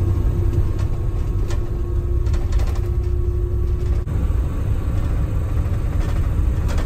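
Steady low rumble of road and engine noise inside a moving vehicle travelling at highway speed, with a faint steady hum that stops about four seconds in.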